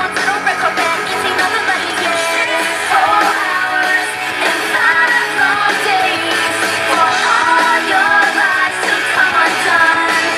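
A rock song with singing and guitar played loud through a custom car audio system, heard inside the van.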